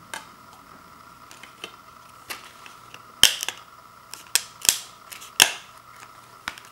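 A compact disc being pressed onto the centre hub of a digipak's clear plastic tray, giving a series of sharp plastic clicks and snaps. The loudest snaps come about halfway through, as the disc seats on the hub.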